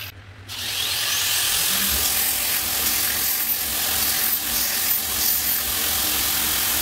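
Belt grinder starting up about half a second in, its whine rising as it spins up, then running steadily with the loud hiss of a small steel bar being ground against the abrasive belt.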